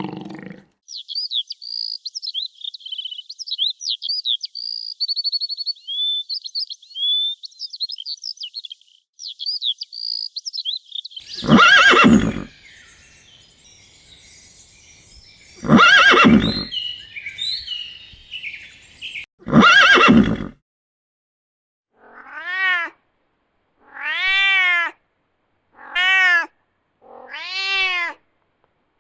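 Animal sounds in a row: a small bird chirping quickly and high for the first ten seconds or so. Then come three loud, harsh animal calls about four seconds apart. The last seven seconds hold five short cat meows, each rising and falling in pitch.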